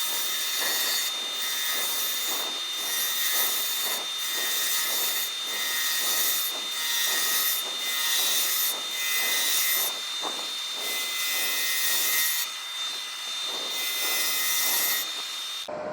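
A hollowing tool cutting spinning monkey puzzle wood on a lathe: a steady rasping hiss that swells and fades about once a second as the tool is worked, over a thin, steady high whine from the running lathe.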